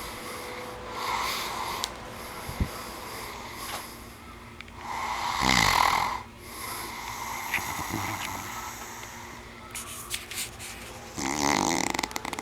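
A man snoring in his sleep, in uneven breaths. The loudest snores come about five seconds in, falling in pitch, and near the end, with a rapid rattle.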